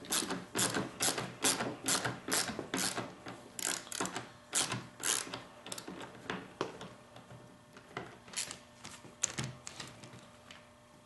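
Ratchet tool clicking about two to three times a second as a screw is backed out of the blower's fuel tank housing, thinning to a few scattered clicks after about six seconds.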